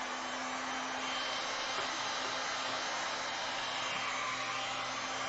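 Handheld electric heat gun running steadily: a constant hiss of blown air with a low, steady motor hum underneath.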